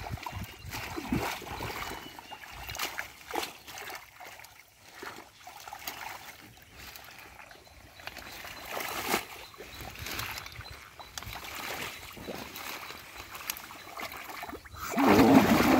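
Hands splashing and sloshing in shallow muddy water, with small splashes and trickles as water hyacinth and mud are pulled about. Near the end a louder, rougher sound comes in.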